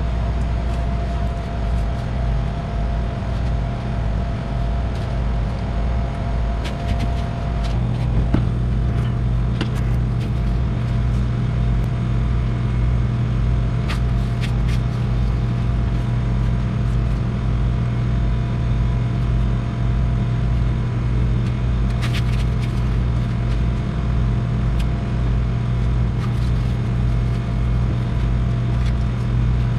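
Steady low mechanical hum of commercial kitchen equipment. A higher whine in it stops about eight seconds in, and the hum grows fuller. A few light clicks sound over it.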